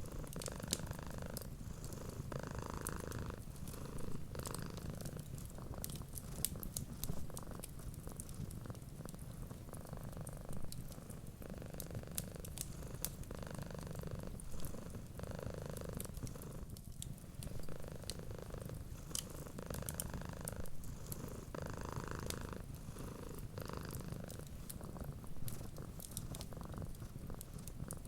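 Cat purring steadily in slow swelling breaths, with a fireplace crackling: frequent small sharp pops and snaps over the purr.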